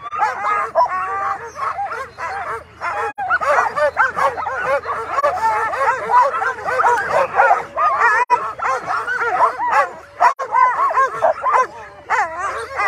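A team of Alaskan husky sled dogs yelping, yipping and whining all at once in a dense, overlapping chorus. It is the eager racket of a team fired up to run at the start of a race.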